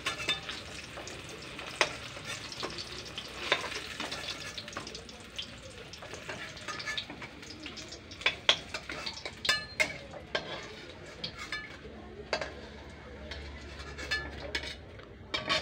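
Eggplant slices sizzling in hot mustard oil in a steel wok, with repeated scrapes and clinks of a steel spatula against the pan as the fried slices are lifted out.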